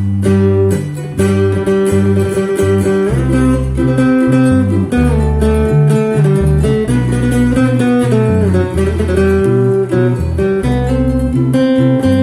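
Instrumental music led by plucked guitar, with a deep bass line and a steady rhythm of plucked notes.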